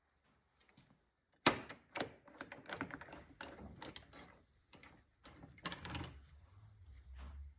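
A quick, irregular run of sharp clicks and knocks, like hand tools and wood being handled, starting about a second and a half in; a faint high tone and a low hum set in near the end.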